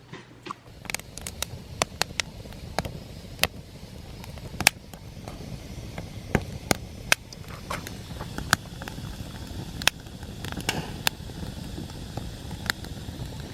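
Irregular sharp pops and crackles over a low steady rumble.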